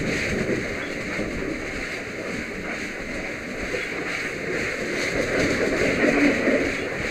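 Water spraying from a fire hose nozzle: a steady rushing hiss.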